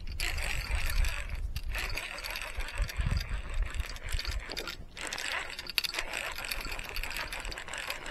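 Fishing reel being cranked as a hooked fish is reeled in, its gears whirring steadily with a couple of short pauses.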